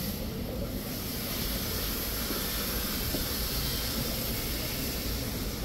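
Steady street background noise: a continuous low rumble with a hiss that comes up about a second in.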